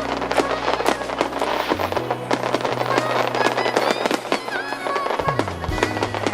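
Fireworks display: rapid, dense crackling and popping of bursting shells, over music with sustained low notes.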